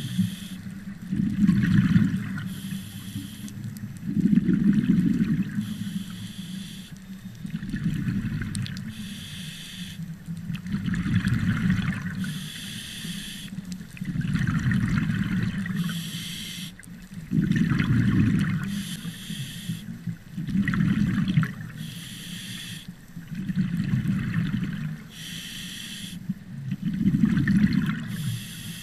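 A scuba diver's regulator breathing underwater: a hiss on each inhale, then a burst of exhaled bubbles rushing past. The cycle repeats about once every three seconds.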